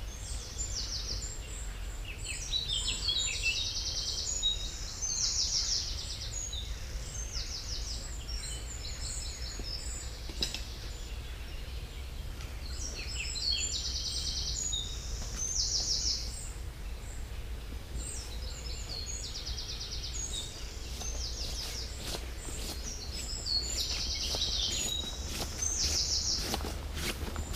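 Songbirds singing repeated short, trilled phrases over a low steady rumble. Over the last few seconds, footsteps on grass come closer.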